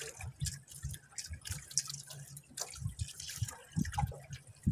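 Water lapping and splashing against the hull of a small fishing boat: irregular small splashes, drips and knocks over a low rumble.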